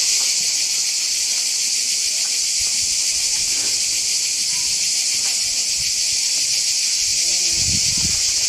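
Chorus of cicadas: a loud, steady, high-pitched drone that holds without a break. Faint voices come in near the end.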